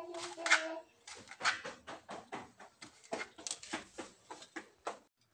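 Kitchen knife chopping small eggplants into cubes on a plastic cutting board: a quick run of sharp cuts against the board, about three a second, stopping near the end.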